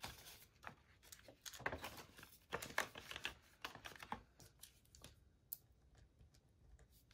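Faint rustling of paper bills and cash envelopes being handled in a ring binder, with light clicks and taps; the sounds thin out over the last two seconds.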